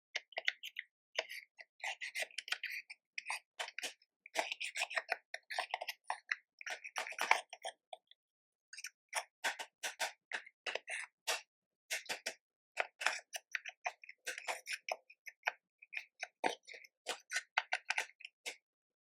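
Slime being kneaded and squished by hand, making a rapid, irregular run of wet clicks and pops, with a pause of about a second near the middle.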